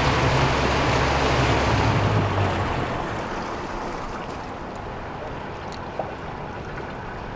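A 300 hp Yamaha outboard running under way, with rushing water from the wake. About two to three seconds in, the engine note fades, leaving a steadier, quieter wash of wind and water.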